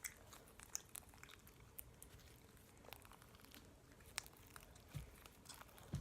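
Faint hand-kneading of sticky glue slime activated with detergent: scattered small clicks and pops as the slime pulls away from the fingers.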